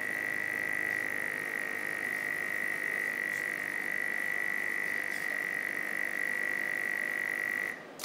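Delta robot prototype running its pick-and-place routine: a steady high-pitched electrical whine that holds one pitch, cuts off sharply near the end, and is followed by a short click.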